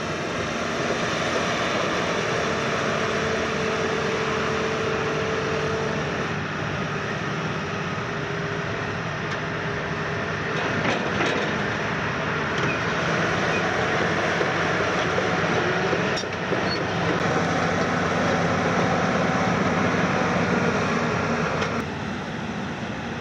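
Hitachi KMC 380 S-6 long-front demolition excavator running under load, its diesel engine and hydraulics making a steady noise with a humming whine that shifts in pitch as the machine slews and works its boom. A few sharp knocks come in the second half, and the level drops shortly before the end as the machine eases off.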